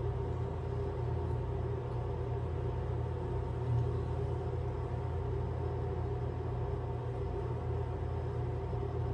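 A steady low mechanical hum with several even tones above it, unchanging throughout, with one brief low bump a little under four seconds in.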